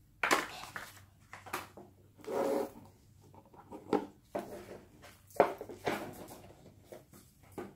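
Handling noise from a cardboard smartphone box: irregular rubbing and scraping of card, with a few sharp knocks and one longer sliding rub as the phone is lifted out of the box.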